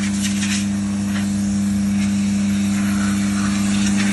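Van-mounted 3-in-1 pressure washer and steam unit running: a steady electric-motor and pump hum, with faint hissing over it.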